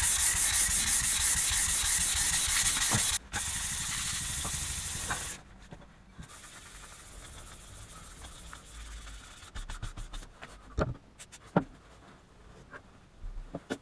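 Hand sanding a steel axe head with P800 wet-or-dry sandpaper: quick back-and-forth rubbing strokes with a strong hiss, dropping in level about three seconds in and stopping about five seconds in. After that, quieter handling with a few light taps and clicks.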